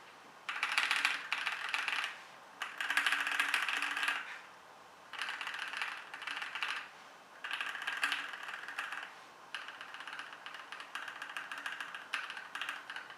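Mechanical keyboard with NovelKeys Cream linear switches being typed on fast: four quick bursts of key presses about a second and a half each with short pauses, then steadier typing from about two-thirds of the way through.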